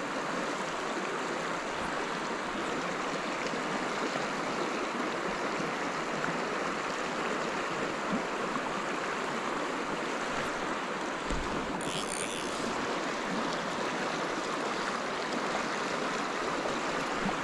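Swollen creek water rushing steadily over a riffle, running high after rain. A brief light rattle comes about twelve seconds in.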